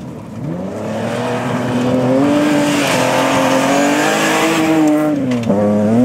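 Rally car engine at high revs, growing louder over the first two seconds as the car comes closer, then holding loud and steady, with a quick drop and rise in pitch about five and a half seconds in.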